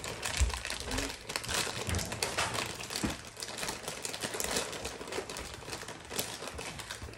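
Thin clear plastic bag of animal crackers crinkling and rustling as a child's hands work at it, a dense run of small crackles.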